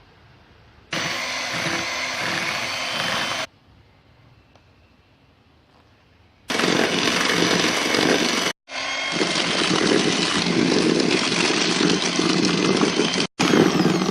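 Electric mixer running in stretches, with a steady whirring that starts and stops abruptly: one run of about two and a half seconds, a pause, then a longer run cut by two brief gaps.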